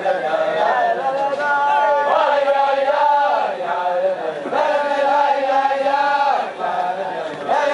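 A crowd of men singing a Hasidic tune together in unison, in long held notes that rise and fall from phrase to phrase.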